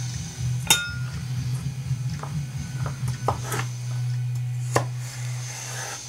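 A kitchen knife knocking and clinking: several separate sharp knocks, one near the start with a short metallic ring, over a steady low hum.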